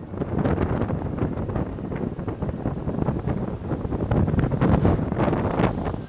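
Wind noise: a rushing, buffeting hiss that rises and falls unevenly.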